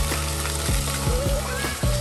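Background music with a steady beat and bass notes, over the even hiss of splashing water from the jets of a ground-level plaza fountain.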